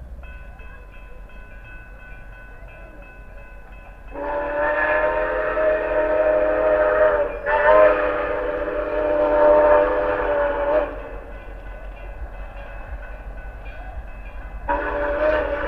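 Whistle of Grand Canyon Railway 4960, a Mikado steam locomotive, blowing two long chime blasts of about three seconds each with a very short break between them, then a third blast starting near the end.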